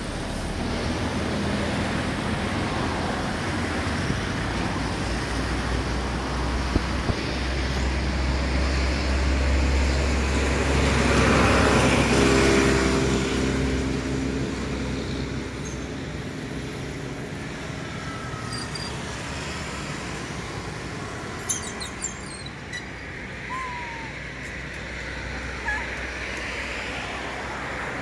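Steady road-traffic noise with a vehicle passing, its low engine rumble swelling to its loudest about halfway through. A few faint short high chirps come later.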